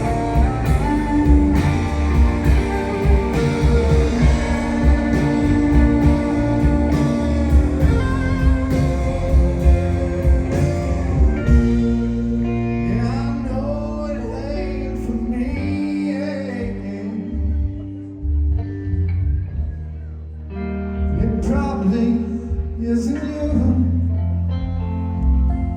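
Live band playing a song, with guitar, bass, drums and singing. About halfway through the band thins out and the low end drops away for a few seconds, with wavering held notes over it, then the full band comes back in near the end.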